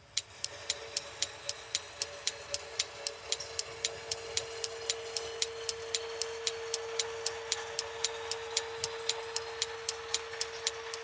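Clock ticking sound effect: fast, even ticks at about four a second, with a steady hum and a faint hiss underneath.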